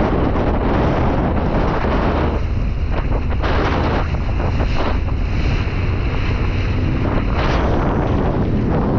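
Wind buffeting the microphone along with rushing water, recorded from a Sea-Doo Spark Trixx jet ski. The wind noise eases in patches for a few seconds midway, then comes back strongly near the end.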